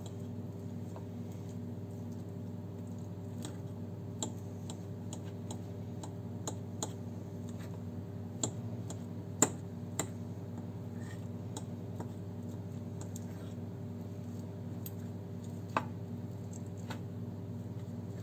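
Fork crumbling feta cheese on a china plate: scattered light clicks and taps of metal on porcelain, a few sharper ones, over a steady low hum.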